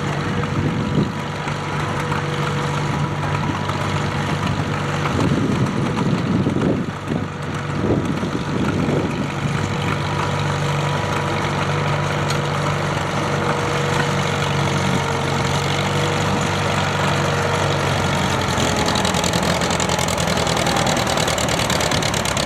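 Antique farm tractor engine running steadily at a low, even speed, its note easing down slightly near the end.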